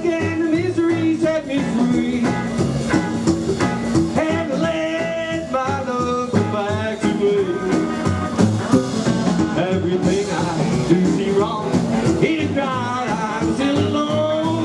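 Live rockabilly band playing the instrumental opening of a blues song, with electric guitar, double bass and drums keeping a steady beat.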